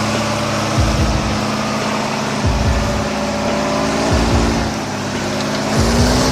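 Heavy truck engine running under load, its pitch rising and falling a little. Low thumps repeat about every second and a half.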